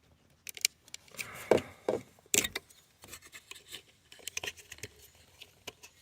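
Small screwdriver prying and scraping at the plastic release tab of a door wiring connector: irregular clicks, knocks and rubbing, with the loudest clicks a little before the middle.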